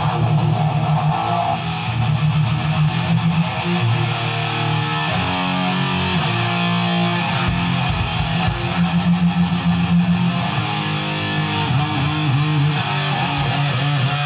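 Heavily distorted electric guitar played loud through an amplifier, holding low sustained notes in a riff as a sound check, cutting off suddenly at the end.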